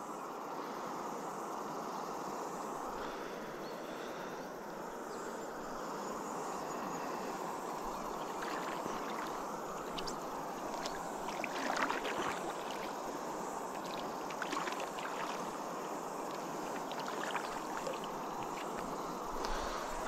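Steady rush of flowing river water, with a few light clicks and knocks from about eight seconds in, the loudest around twelve seconds in.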